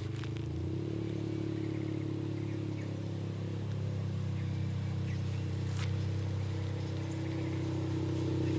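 ATV engine running steadily, its pitch stepping up slightly about a second in and holding even afterwards.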